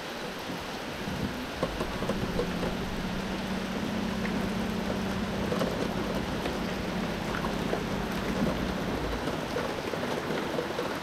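Heavy rain falling on the river and pattering on an aluminium boat, with many small drop ticks. From about a second in until about nine seconds, a low steady hum from the boat's electric trolling motor runs under it.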